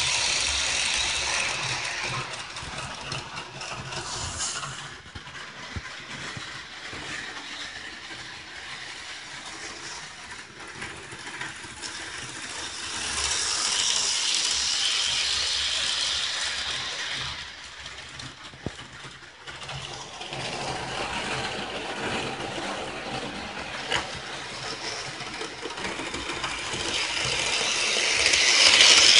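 Model train running round its loop of track, a continuous mechanical rattle of wheels and drive. It swells loud each time the train passes close by and fades as it runs round the far side: loud at the start, again about halfway through, and again at the end.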